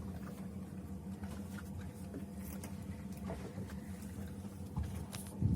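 Fishing boat's engine running steadily with a low hum, with a few faint clicks over it.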